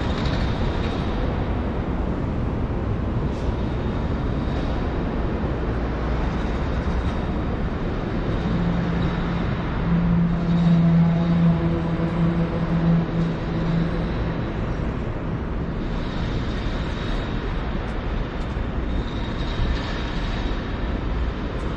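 City street traffic: a steady rumble of engines and tyres, with a louder engine hum from one vehicle swelling and fading between about eight and fifteen seconds in.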